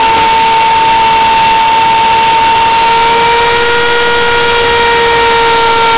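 Homemade CNC mill cutting into a wooden board: the spindle motor runs at speed with a steady high whine, over the hiss of the bit chewing through the wood.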